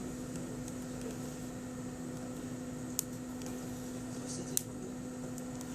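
A steady low electrical hum with two short sharp clicks, about three and four and a half seconds in, typical of handling a phone and its packaging.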